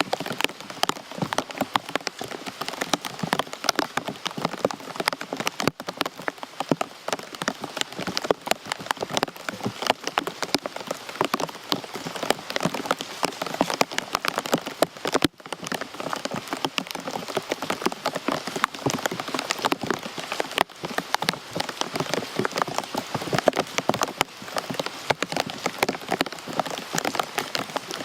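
Rain falling steadily: a dense patter of many drops striking a surface, with two momentary dips in the sound.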